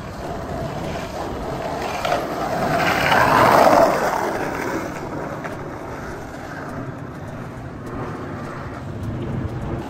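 Skateboard wheels rolling on rough asphalt, a steady rumbling hiss that builds as the board rides close past about three to four seconds in, then fades as it rolls away.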